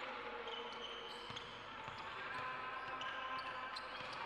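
Basketball bouncing on the court during a game, a few sharp knocks over a steady background of voices.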